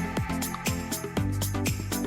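Background electronic dance-style music with a steady beat and falling bass notes about twice a second.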